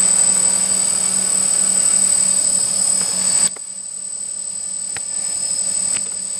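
DJI Flamewheel F450 quadcopter's brushless motors and propellers humming steadily as it hovers. The sound drops suddenly in level a little past halfway through.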